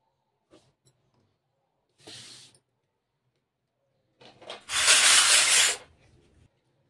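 A short, faint rustling hiss about two seconds in, then a much louder burst of the same rustling noise lasting about a second near the middle.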